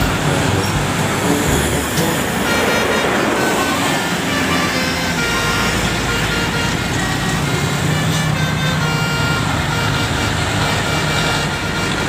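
Road traffic passing, with engines and tyres, while a bus's multi-tone telolet horn plays a melody of short high tones that step from pitch to pitch from about two seconds in to about nine seconds.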